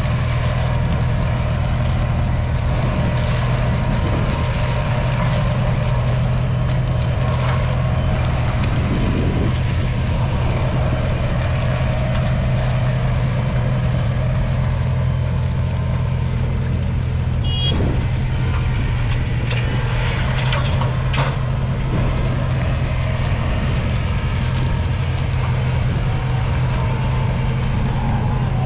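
Kubota M7-153's 6.1-litre four-cylinder diesel engine running steadily at a constant speed.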